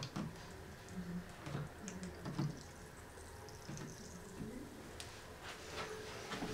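Quiet room tone with a few faint soft knocks and handling sounds as a plastic pH meter pen is set into a small plastic cup of cola.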